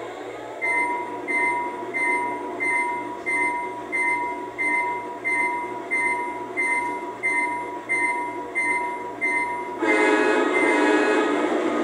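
Sound system of a USA Trains SD70 large-scale model diesel locomotive, played through its stock factory-mounted speaker: the locomotive bell rings steadily, about one and a half strikes a second. Near the end the bell gives way to a louder sustained multi-note horn blast.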